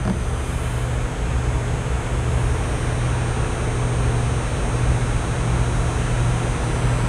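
Steady machine running noise with a low hum, starting abruptly and cutting off abruptly about seven seconds later.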